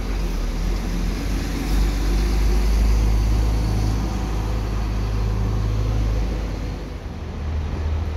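Diesel intercity coach engine rumbling as the bus drives past close by and pulls away, loudest about three seconds in, then fading, with tyre hiss on the wet road. Another coach's engine rises near the end.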